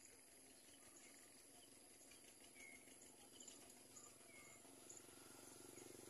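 Near silence: a faint steady high hiss with a few faint, short chirps spaced a second or two apart.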